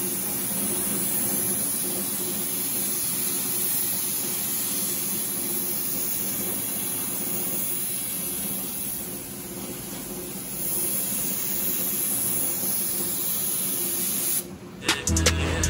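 Steady air hiss of a gravity-feed spray gun laying clear coat on a car bumper, easing briefly about nine seconds in. The spray cuts off sharply near the end, followed by a few sharp clicks.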